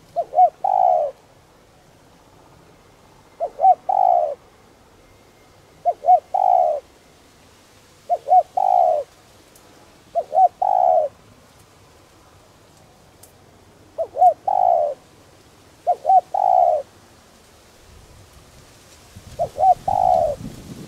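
Spotted dove cooing: eight phrases about two to two and a half seconds apart, with a longer pause near the middle. Each phrase is two short notes followed by a longer one. A low rushing noise builds near the end.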